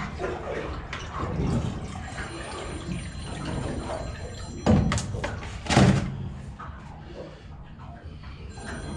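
Clanks and scraping of a wrench being worked on the top cap of a diesel fuel filter and water separator housing, with two louder knocks about five and six seconds in.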